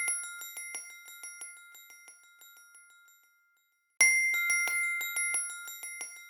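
iPhone ringtone playing: a fast run of bright, bell-like struck notes over a held ringing tone, fading away over about three seconds, then the same loop starting again about four seconds in.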